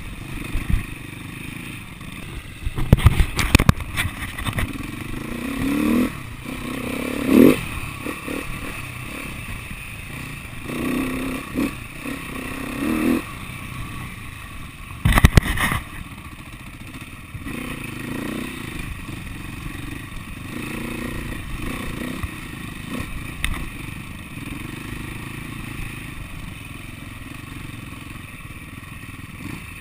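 SWM 300RS single-cylinder four-stroke trail bike engine running at low speed over rough ground, with the revs blipped up and back down several times. Two bursts of loud clattering knocks, a few seconds in and again about halfway, come from the bike jolting over the rutted track.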